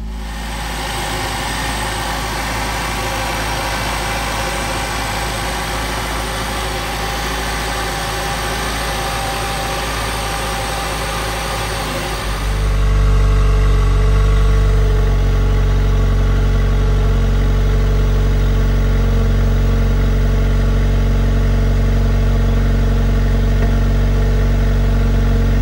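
Jeep Wrangler 4xe's 2.0-litre turbocharged four-cylinder idling steadily on a cold start with an aFe Super Stock intake and Pro DRY S filter fitted. It is heard first at the engine bay, with a hissing intake and engine sound. About halfway through it switches to the tailpipe, where it is a louder, deeper, steady exhaust note.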